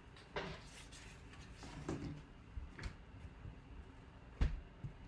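Hands handling and unfolding a pinstriped baseball jersey on a table: soft handling noise with several light knocks, the loudest near the end.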